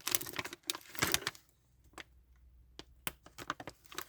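Cough drop packaging being handled: a rustle and crinkle in the first second or so, then a few scattered light clicks and taps.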